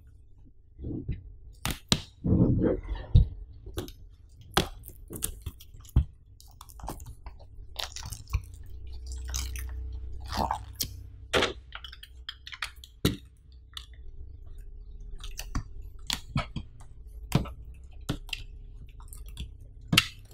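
Hands handling a shrink-wrapped cardboard laptop box: crinkling plastic wrap, fingers tapping and rubbing on it, and the box knocking and sliding on a table. The sounds come as scattered sharp taps and clicks, with a couple of short crinkly rustles.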